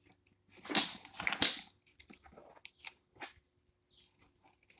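Plastic rattling and clicking as a toy vending machine and its contents are handled: a short noisy rattle about half a second in, loudest near the middle, then a few light clicks.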